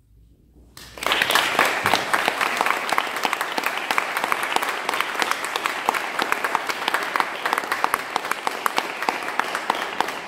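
Audience applauding, breaking out about a second in and going on steadily.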